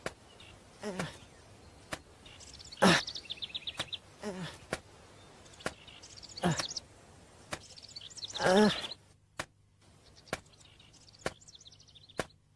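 Cartoon soundtrack effects: birds twittering in short trills, a soft click about once a second, and a few louder pitched sounds, the loudest about three and eight and a half seconds in.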